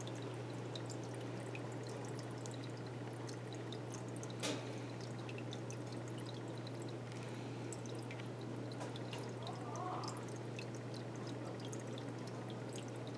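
Aquarium water trickling with scattered small drips over a steady low hum, and a single sharper click about four and a half seconds in.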